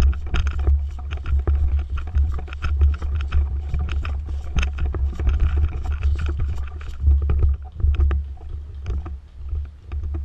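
Heavy low rumble of buffeting or handling on a body-worn camera's microphone, with dense irregular rustling and crackling, as of someone moving through brush and dry leaves.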